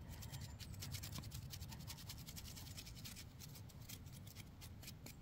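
Small stiff-bristled brush on a mushroom knife scrubbing dirt off a lobster mushroom: a rapid, irregular series of faint scratchy strokes.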